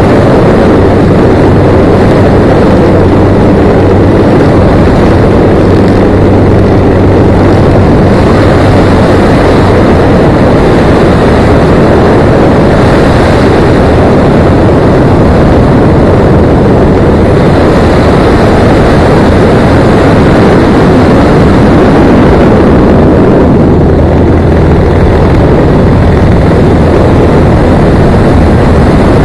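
Vedeneyev M-14P nine-cylinder radial engine and propeller of a Yak-55M aerobatic plane running under power, heard through a wing-mounted camera's microphone. A loud rush of wind on the microphone covers it. The engine's low hum stands out during the first third, fades into the wind noise through the middle and comes back near the end.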